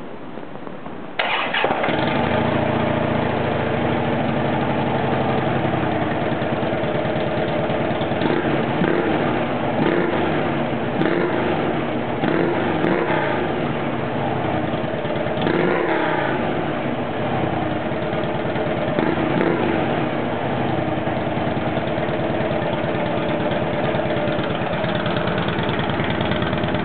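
2009 Harley-Davidson Ultra Classic's Twin Cam V-twin starts about a second in, on its stock exhaust. It then runs at a steady idle, with a few light blips of the throttle in the middle.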